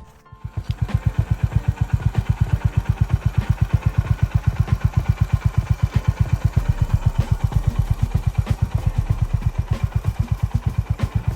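Single-cylinder motorcycle engine running with a steady, even thump of about eight beats a second. It comes in about half a second in.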